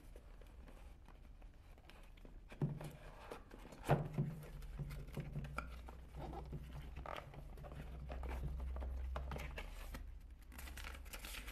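Faint handling of a cardboard box: flaps folded open and a paper invoice pulled out, with soft knocks and rustles, the clearest about two and a half and four seconds in, over a faint low hum.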